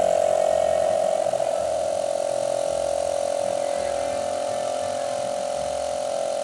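Small electric air compressor running with a steady hum as it pumps air through a needle into a football.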